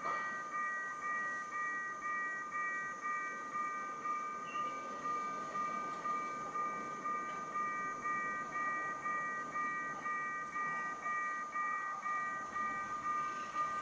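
Level crossing warning bell ringing steadily at about two strokes a second, each stroke fading before the next, while the barrier is down to warn of a train.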